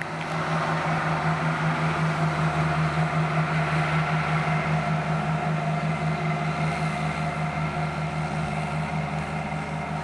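Tractor's diesel engine running steadily as it pulls a grain trailer past, a steady low hum with a slight flutter, easing a little toward the end.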